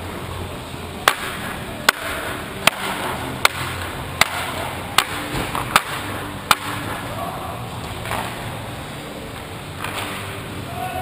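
A hockey goalie's stick tapping on the ice, eight sharp even taps about three-quarters of a second apart, over the steady hum of the rink.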